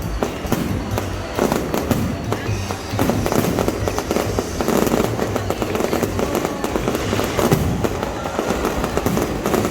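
Fireworks going off in rapid, irregular succession, a dense run of bangs and crackles, with music playing underneath.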